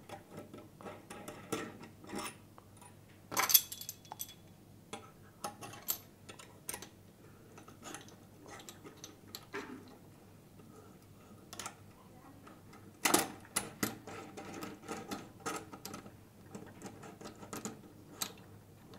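Plastic and metal camera-mount parts being fitted together by hand, giving irregular clicks, taps and small rattles. There is a sharper knock about three and a half seconds in and a quick run of clicks around thirteen seconds.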